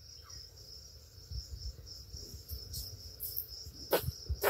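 Insects chirping in a steady, high-pitched chorus, with two brief knocks near the end.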